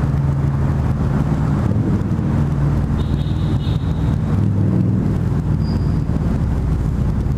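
Harley-Davidson V-Rod Muscle's liquid-cooled V-twin running at low speed through Vance & Hines slip-on exhausts, heard through a microphone inside the rider's helmet. The revs rise briefly about four and a half seconds in.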